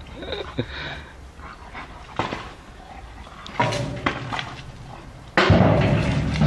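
Dog sounds with a few short, sharp noises, then a sudden louder stretch of noise about five and a half seconds in.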